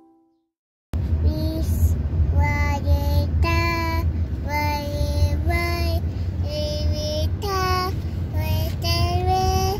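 A young child singing a tune in short, held phrases inside a moving car, over the steady low rumble of the road and engine; the singing starts about a second in after a brief silence.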